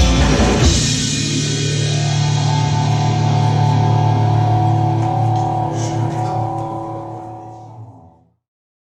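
End of a psychedelic rock song: the band's last full hit, then a sustained electric guitar chord ringing on and fading out, dying away a little after eight seconds.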